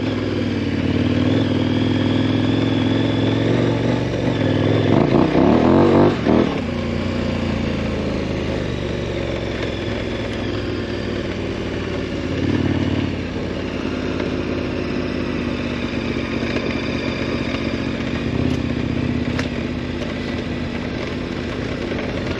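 2018 KTM 1090 Adventure R's LC8 V-twin engine under way on the road. Its pitch rises about four to six seconds in and drops back, then it runs steadily.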